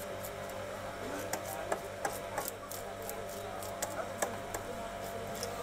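Knife scraping the scales off a hilsa fish, a run of short, irregular scraping clicks a few times a second, over a steady low hum.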